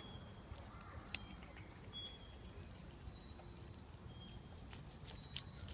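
Faint sharp clicks and snaps of a cat biting and chewing fresh green leaves, over a low steady background rumble, with a few short high chirps.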